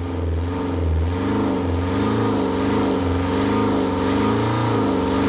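Diesel van engine running on Dexron automatic transmission fluid fed from a canister, just started. Its pitch rises and falls unevenly about once a second.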